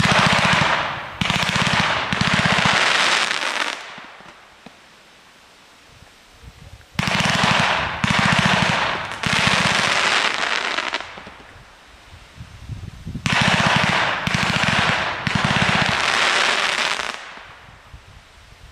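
Ponza P7965 160-shot comet firework cake firing in rapid volleys. There are three runs of quick-fire launches, each a few seconds long and broken into short spurts, with a few seconds' lull between runs.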